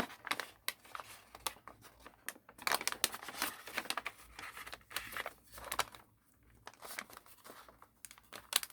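A sheet of origami paper being handled and folded by hand, crinkling and rustling in irregular spurts, with a brief lull about six seconds in.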